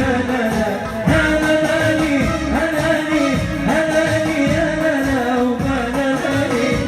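Arabic pop song with a Middle Eastern melody line bending and sliding between notes over a steady low beat.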